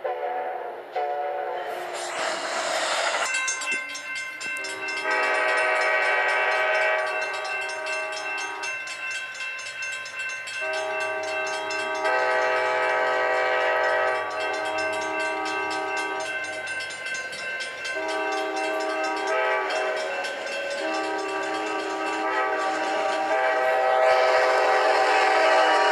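Amtrak locomotive's multi-chime air horn sounding four blasts, long, long, short, long: the standard grade-crossing signal. Train noise from the passing train runs beneath the horn.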